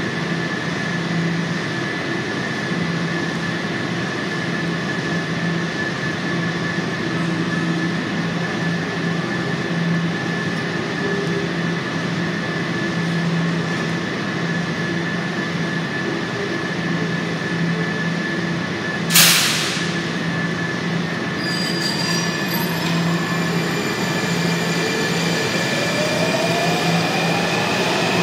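Washington Metro train standing at an underground station platform with a steady electrical hum. About two-thirds of the way through there is one short loud hiss, and then a rising whine as the train starts to pull out of the station.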